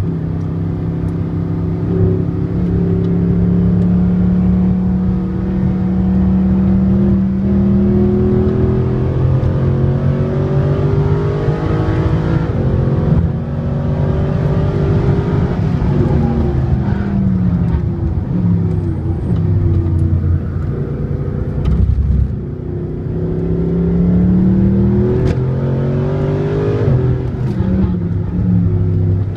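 Mercedes SLS AMG's 6.2-litre V8 through an Akrapovič exhaust, heard from inside the cabin at track speed. The engine note climbs under acceleration and drops away for corners several times over, with a short dip about 22 seconds in before it climbs again.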